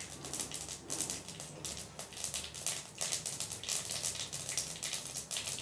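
Mustard seeds spluttering in hot oil in a kadai: a dense, irregular crackle of small pops that grows busier. This is the tempering stage, the sign that the oil is hot enough to add the ginger-garlic paste.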